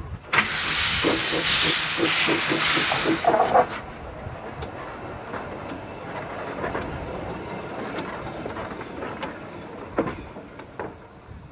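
GWR No. 1340 'Trojan', an 1897 Avonside 0-4-0 saddle tank steam locomotive, moving off. A loud hiss of escaping steam starts suddenly just after the start and cuts off about three and a half seconds later. Then comes quieter running with a few sharp clicks as the engine draws away.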